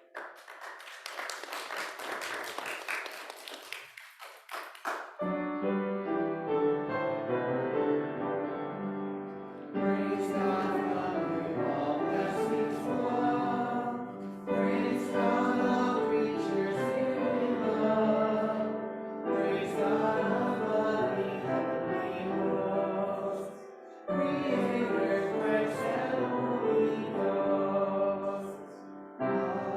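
Choral singing with accompaniment, moving in phrases with short breaks between them. It comes in about five seconds in, after a few seconds of dense crackling noise.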